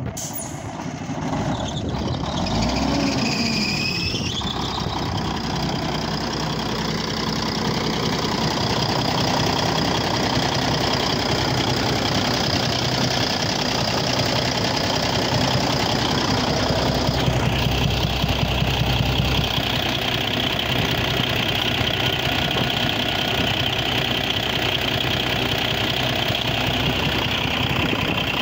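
A 1998 Ford heavy truck tractor's diesel engine coming to life, its pitch rising and falling over the first few seconds, then idling steadily. A high whine over the idle drops slightly in pitch about seventeen seconds in.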